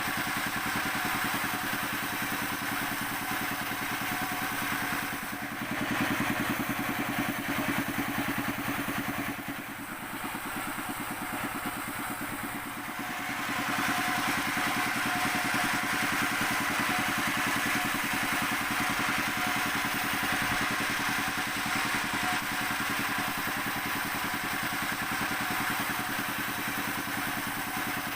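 Sawmill machinery running steadily, an engine-like drone with a fine regular pulse. It eases off for a few seconds about a third of the way through, then picks up again.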